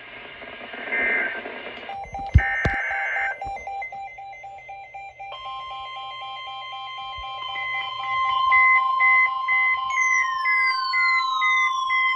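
Emergency alert tones. Short bursts of SAME alert data come first, with a pulsing beep starting about two seconds in. About five seconds in, the steady NOAA Weather Radio alarm tone begins, with beeps over it, and in the last couple of seconds repeated falling electronic sweeps join in. Together they announce a new warning broadcast.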